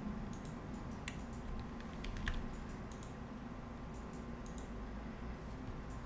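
Computer keyboard keys clicking in scattered, irregular keystrokes over a low steady hum.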